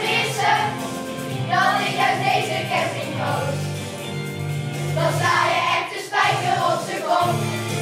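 A group of children singing together over accompaniment of held chords.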